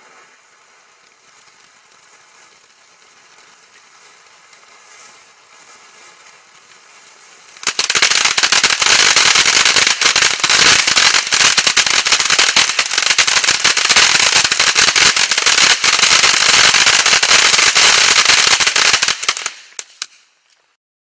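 Magnus 'Luxury Cruise' firework fountain: first a faint hiss as it sprays gold sparks, then, about a third of the way in, a sudden switch to loud, dense crackling for about twelve seconds. The crackling fades out as the fountain burns out near the end.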